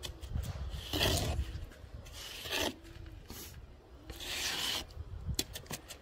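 Hand trowel scraping across the surface of wet, freshly poured concrete, smoothing it in three separate strokes, with a few light clicks near the end.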